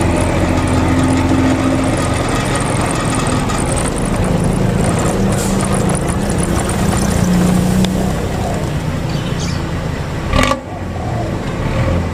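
Old front-engined Hino bus engine running under way, with a deep, fierce 'snoring' (ngorok) exhaust note whose pitch climbs about four seconds in. A single sharp knock sounds about ten and a half seconds in, after which it is quieter.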